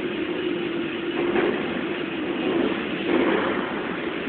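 Ducati Monster V-twin motorcycle engines running under stunt riding, a steady drone with brief revving surges about a second and a half and three seconds in, heard inside a large concrete exhibition hall.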